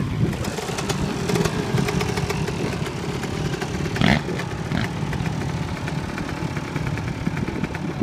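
A crowd of dirt bike and ATV engines idling and revving together in a continuous rumble, with a brief louder burst about four seconds in.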